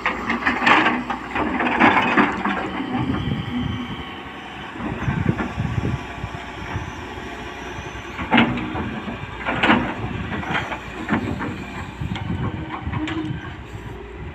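Hydraulic excavator at work: its diesel engine runs steadily under a run of scraping, crunching and knocking from the bucket working the soil, with several louder bursts.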